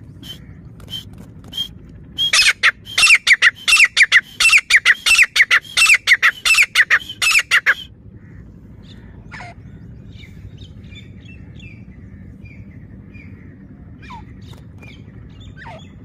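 Grey francolin calling loudly: a fast run of repeated sharp notes, about four a second, lasting some five seconds and starting a couple of seconds in.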